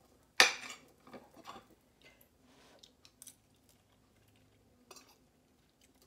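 A metal fork clinking and scraping on a ceramic plate as it cuts through a waffle-iron omelet: one sharp clink about half a second in, then a few fainter scattered clinks.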